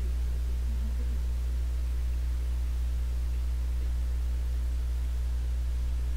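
Steady low electrical hum with a faint hiss underneath, the mains hum of the recording setup.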